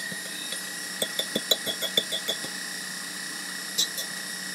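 Tilt-head stand mixer running steadily with its wire whip beating meringue, a constant motor whine. Over it, about a second in, comes a quick run of light clicking taps, and a few more near the end.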